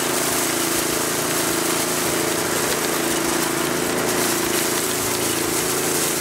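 Motorised feed grinder (hammer mill) running steadily while dry seed pods are fed into its hopper and ground fine: a constant motor hum under a continuous hissing, rattling grind.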